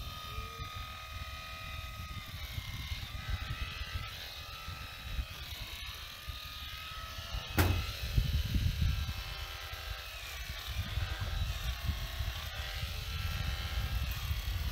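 Electric sheep shears running with a steady high whine while crutching a ewe, the wool being cut from around her tail and udder; the pitch dips briefly a few times. A sharp knock about halfway through.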